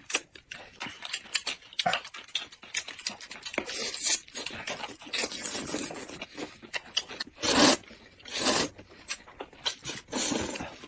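Noodles being slurped and chewed close to the microphone, in a string of noisy sucking bursts. Two long, loud slurps come about two thirds of the way through, and more follow near the end.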